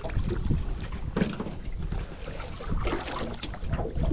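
A hooked bass splashing and thrashing at the surface beside a jon boat as it is landed, with scattered knocks of handling in the boat. One sharp splash or knock stands out about a second in.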